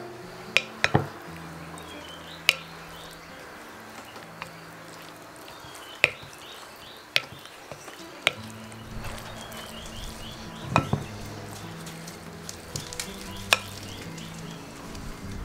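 A spoon stirring and folding a wet filling of tomato sauce, diced salami and grated cheese in a bowl, a steady squelching with several sharp clinks of the spoon against the bowl's side.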